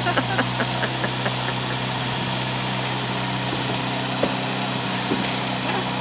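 Austin 1300 Countryman's 1275 cc A-series four-cylinder engine idling steadily, warmed up. A couple of faint knocks come about four and five seconds in.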